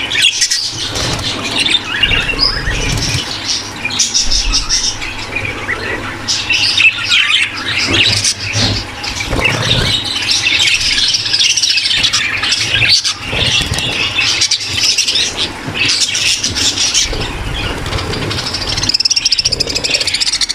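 A breeding-room flock of many budgerigars chattering and squawking continuously. This is the sound of budgies in breeding condition, used to spur caged pairs to court and mate.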